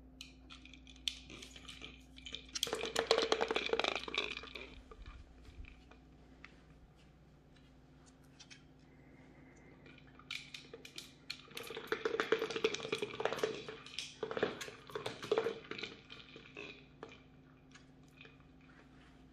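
Bichon Frise puppies rooting in fabric snuffle toys for treats: two stretches of dense clicking and rustling, one about three seconds in and a longer one from about eleven to sixteen seconds in.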